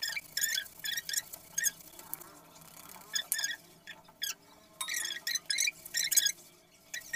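Wooden rolling pin and rolling board (belan and chakla) squeaking with each stroke as roti dough is rolled out: a quick series of short squeaks, about two to three a second, with a short pause midway.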